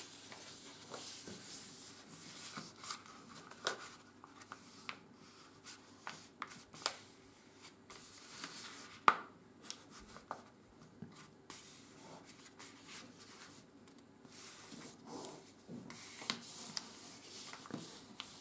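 A sheet of 80 g/m² office paper being folded and creased by hand: soft rustling and sliding, with scattered sharp crinkles and taps, the loudest about nine seconds in.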